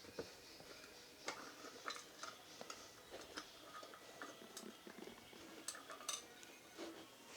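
Faint, irregular small clicks and taps of small metal and plastic parts and tools being handled while a public-telephone handset earpiece is worked on.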